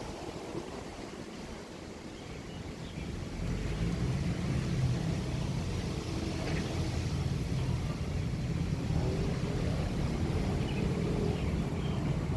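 Wind buffeting the microphone: a steady low rumble that grows louder about three and a half seconds in.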